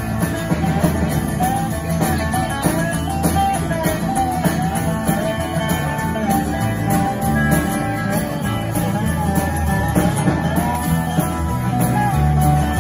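Live acoustic rock-and-roll band playing: strummed acoustic guitars over an upright bass walking through low notes, with a lap steel guitar playing a wavering, sliding lead line on top.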